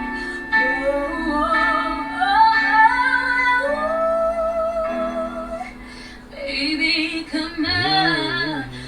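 A female singer holding long notes with vibrato and melismatic runs over a sustained accompaniment, from a song played back. The singing dips quieter about six seconds in and then swells again.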